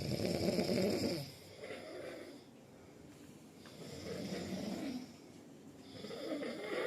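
A person snoring, with a long rasping snore every two to three seconds and the first one the loudest.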